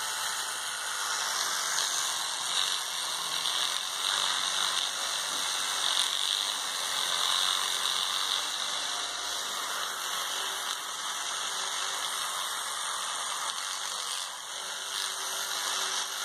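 Electric toothbrush buzzing steadily as its head brushes against a cat's teeth, a little quieter near the end.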